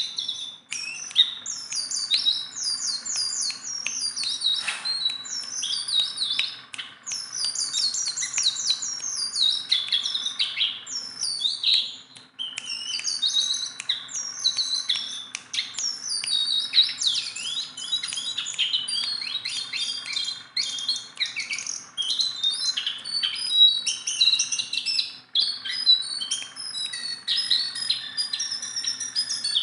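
A jongkangan bird singing steadily: a rapid, unbroken stream of high chirps and trills, with a brief pause about twelve seconds in.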